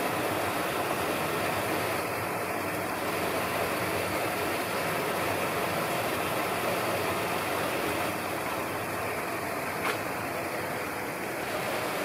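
Steady rush of running water in the otter pool, with one short click about ten seconds in.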